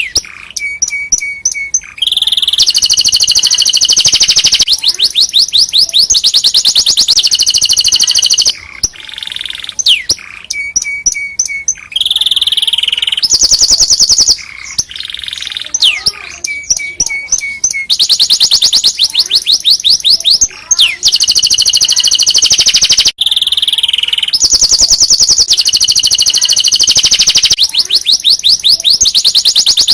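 Domestic canary singing a long, loud song of rapid trills and rolls, switching to a new repeated phrase every second or two with a few short pauses.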